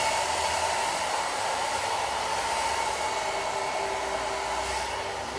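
Handheld hair dryer running steadily: a rush of air with an even motor whine.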